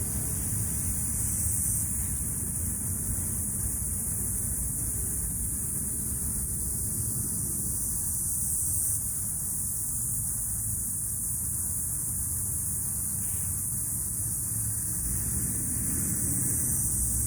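Cicadas buzzing in a steady, high-pitched drone that does not let up, over a low, even rumble.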